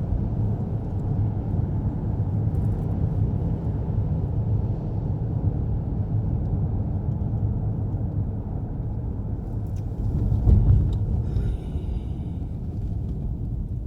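Steady road and engine rumble heard inside a moving car's cabin, with a brief louder bump about ten and a half seconds in.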